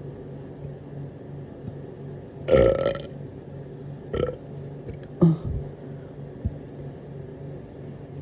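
A person burping: one loud burp lasting about half a second, then two shorter burps a couple of seconds later.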